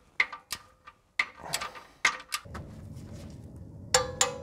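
Torque wrench with a 17 mm socket tightening a car's oil sump plug bolt: a string of sharp, irregular ratchet clicks, then near the end a louder double click with a brief ring as the wrench reaches its set torque of 32 lb-ft (44 Nm), the sign that the plug is tight. A steady low noise comes in about halfway.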